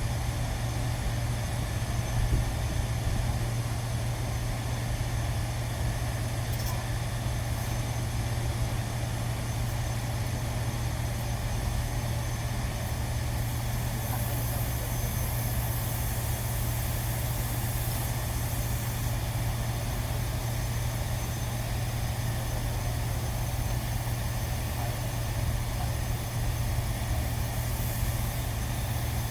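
A machine running steadily with an even low hum that does not change.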